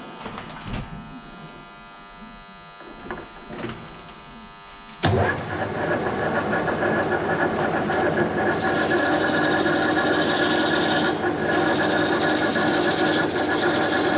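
A lathe running with a steady hum. About five seconds in, a tool meets the spinning workpiece and loud, continuous cutting noise sets in. A harsher high hiss joins a few seconds later and drops out briefly.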